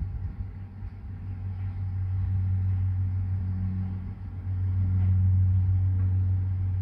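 A steady low mechanical hum or rumble that swells about halfway through.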